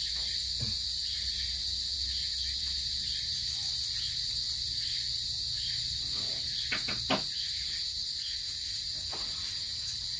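Steady high-pitched drone of insects in the background, with a few faint soft clicks about seven seconds in.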